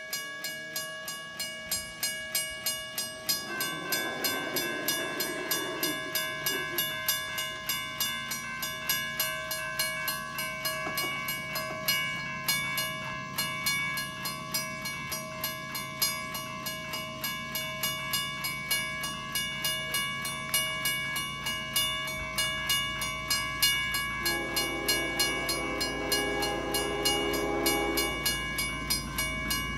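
Railroad crossing warning bell ringing in steady, regular strokes. A train horn sounds for about four seconds near the end, over the low rumble of the approaching train growing louder.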